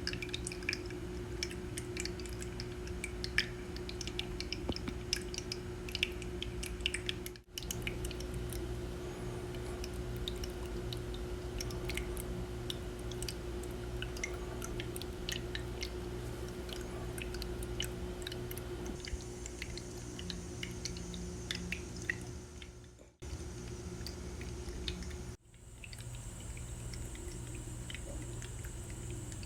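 Small tiered tabletop fountain running: water trickling and dripping down its bowls in many small ticks, over a low steady hum from its pump.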